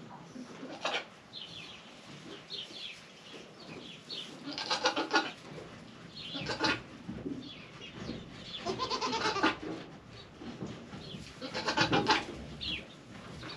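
Goats bleating: four wavering bleats, each under a second long, about four and a half, six and a half, nine and twelve seconds in.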